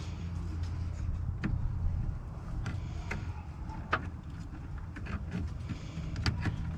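Hands fitting radiator hoses and parts during a radiator swap: scattered clicks and knocks of plastic and metal over a steady low hum.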